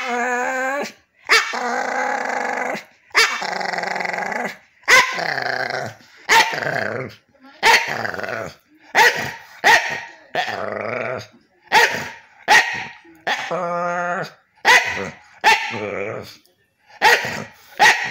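Staffordshire bull terrier "talking": a long run of drawn-out, pitched vocal sounds, one after another about once a second, many starting sharply. It is grumbling chatter while lying relaxed, not barking at anything.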